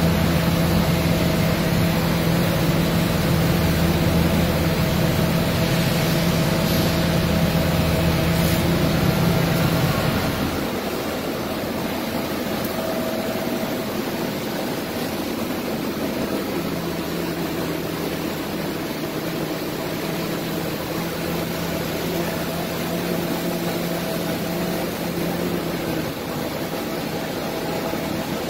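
Laser cutting machine running, a steady hum over an even whoosh of air noise. A deeper hum drops away about ten seconds in, leaving it a little quieter.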